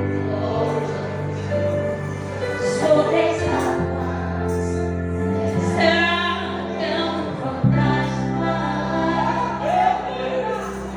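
A choir singing a gospel hymn over sustained instrumental accompaniment.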